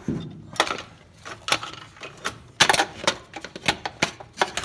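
Irregular clicks and light knocks of a work light being handled and set in place, starting with a dull thump and bunching up a little past halfway.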